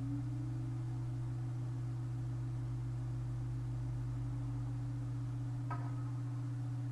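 A steady low hum with a fainter, slightly wavering higher tone above it, and one small click near the end.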